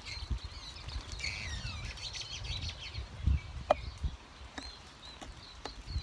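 Small songbirds chirping and twittering, with many short high chirps and one falling call about a second in. A low rumble and a few soft knocks run underneath.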